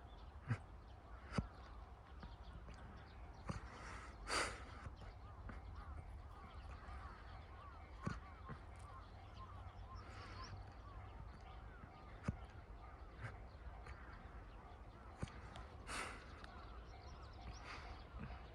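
Faint outdoor ambience with scattered light taps and two short harsh calls, about four seconds in and again near the end.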